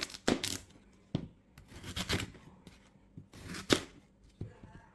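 Several short scraping, rustling strokes with a couple of sharp knocks in between.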